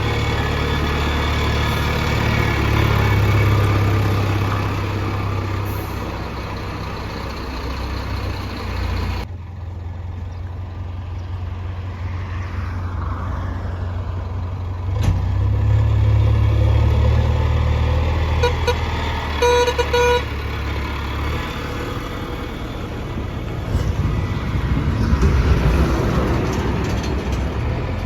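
Heavy diesel engines of a backhoe loader and tipper trucks running and working, a deep steady rumble that shifts abruptly a couple of times. About two-thirds of the way through, a vehicle horn sounds in two short toots.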